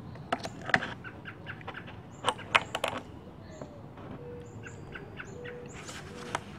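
Sharp metallic clicks and clinks of pliers working at the mower's fuel-line clamp, loudest about a second in and in a quick cluster around two and a half seconds. Small birds chirp repeatedly in the background.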